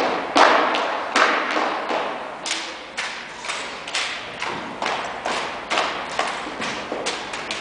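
Drill-team rifles being slapped, caught and handled in a steady rhythm: sharp knocks about two to three times a second, echoing off the hall.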